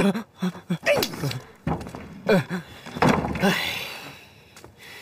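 Short bits of voice, with no clear words, and two dull thumps about a second and a half apart.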